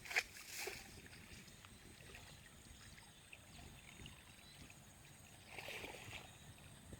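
Faint splashing of water, with a sharp slap about a fifth of a second in, a smaller splash just after, and another splash near the end.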